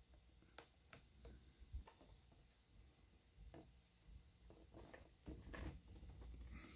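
Near silence, with a few faint clicks and a soft rustle near the end from a boxed action figure's cardboard and clear-plastic window packaging being handled.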